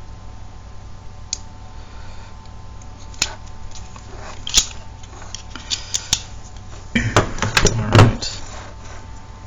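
Scattered light clicks and taps from handling a newly crimped 20-pin IDC ribbon cable and its plastic connectors, with a cluster of louder knocks and rattles about seven to eight seconds in, over a steady low hum.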